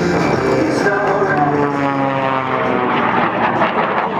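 A small aerobatic biplane's propeller engine running at high power during a manoeuvre, its engine note falling steadily in pitch over the first couple of seconds.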